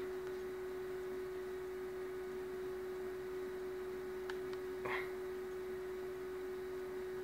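A steady, even hum on one pitch, with a single short click about five seconds in.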